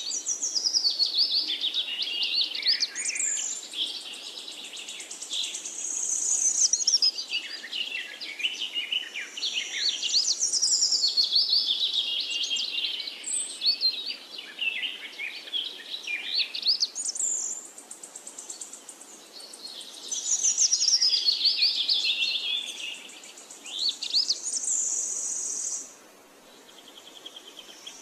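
Birds chirping and singing in quick, high runs of notes that come in waves with short lulls, quieter near the end.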